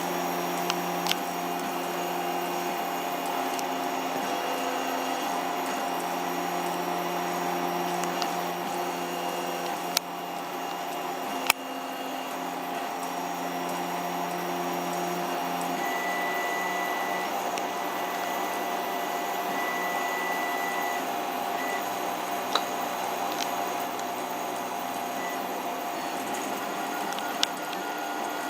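CoreXY 3D printer running: stepper motors whine in held tones that change pitch as the moves change, over a steady fan hum, with a few sharp clicks.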